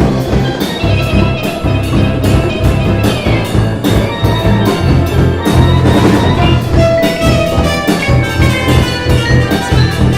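Live jazz-fusion ensemble playing: steel pan over a driving drum kit and percussion, with a moving bass line underneath.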